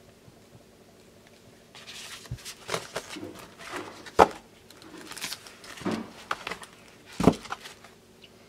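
Paper cards and a cellophane-wrapped craft pack rustling and crinkling as they are handled, starting about two seconds in. There are two sharp knocks, one about four seconds in and one near the end.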